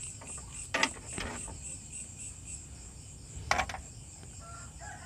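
Crickets chirping steadily in the background, with a few light metallic clicks from spark plugs being handled, the sharpest about a second in and again about three and a half seconds in.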